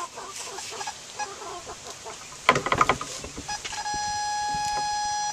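Electronic goat pregnancy detector (PregTone) on a doe's belly: a louder brief noise about two and a half seconds in, a few short blips, then from about four seconds in a steady solid tone. The solid tone is the device's signal that the doe is pregnant.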